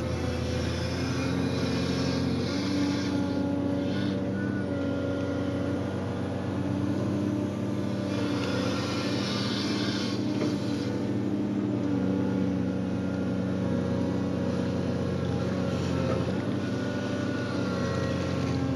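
Hydraulic excavator's diesel engine running steadily under load as the bucket digs and lifts wet clay, with a couple of short stretches of added hiss.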